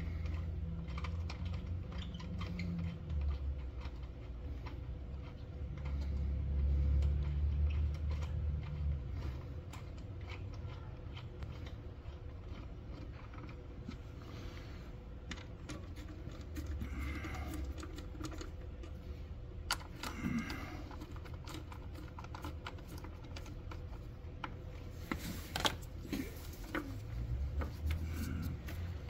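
Scattered light clicks and rattles of small plastic and metal parts and fasteners being handled during engine reassembly, over a low steady background hum.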